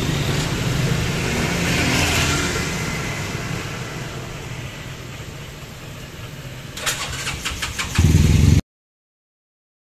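A motorcycle engine running steadily, with a quick run of clicks about seven seconds in and a louder low rumble just before the sound cuts off abruptly.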